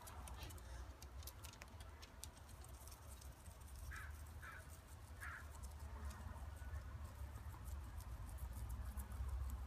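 Guinea pig chewing fresh hay: a quick, irregular patter of small crisp clicks over a low steady rumble. Three short chirps come a little before the middle.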